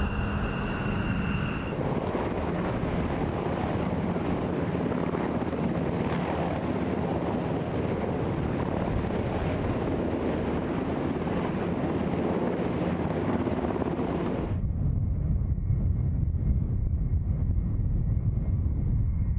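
Three aircraft one after another: briefly the whine of F-15 Eagle jet engines on the taxiway, then for about 13 seconds the steady turbine and rotor noise of an HH-60 Pave Hawk helicopter just off the ground, then from about 15 seconds in the deeper, somewhat louder rumble of an E-3 Sentry AWACS jet's four engines as it rolls along the runway.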